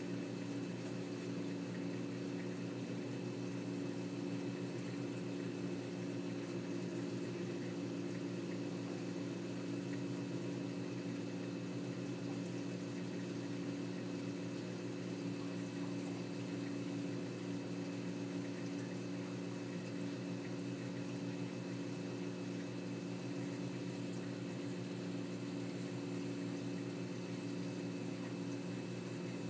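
Saltwater reef aquarium's pumps and circulating water running steadily: a constant low hum over an even hiss of moving water.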